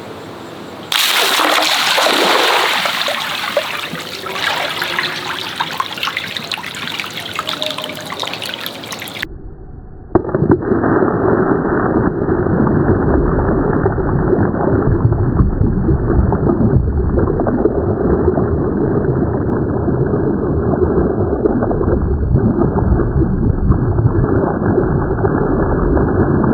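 Water running, gurgling and sloshing as a giant stretchy worm toy is filled with water. About ten seconds in, the sound changes abruptly to a duller, steadier run of water.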